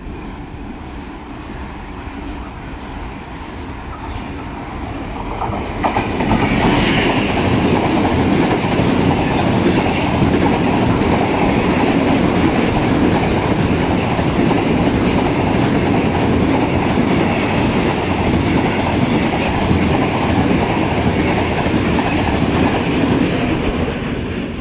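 SNCF Alstom Prima BB 75000 diesel locomotive approaching and going past, its engine growing louder until it passes about six seconds in. A long train of covered hopper wagons then rolls steadily by on the rails, easing off near the end.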